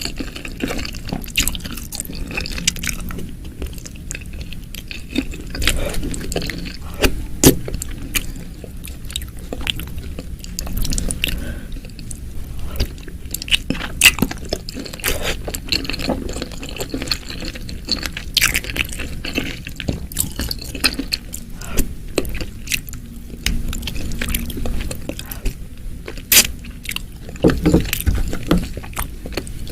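Close-miked eating sounds of spicy Indonesian meatball soup: wet chewing, biting and squishing with many irregular sharp clicks and smacks.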